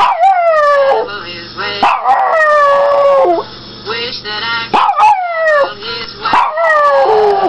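Pomeranian howling along with a laptop, about four drawn-out howls that each slide down in pitch.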